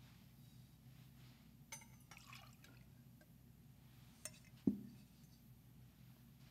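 Faint clinks and brief trickling of glass and metal altar vessels being handled and rinsed, as at the purification of the chalice after Communion, then one dull knock about two-thirds of the way through.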